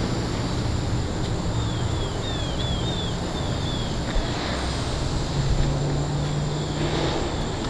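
Steady low outdoor rumble with wind noise on the microphone, and a quick run of about seven short, high, falling chirps about one and a half to three seconds in.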